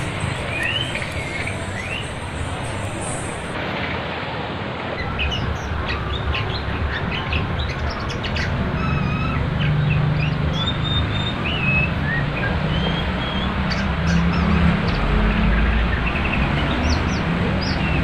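Fast-flowing river water rushing steadily, with a songbird's short whistles and chirps repeated over it throughout.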